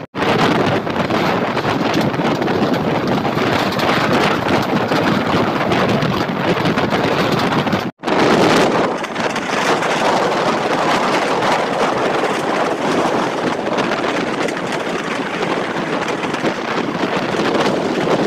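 Wind rushing over the microphone of a phone held out of a moving passenger train, over the train's running noise. The sound cuts out for an instant about eight seconds in.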